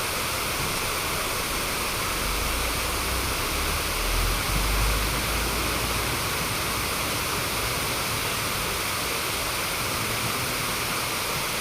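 Steady rushing of river water, an even hiss with no breaks. A low rumble swells briefly between about four and six seconds in.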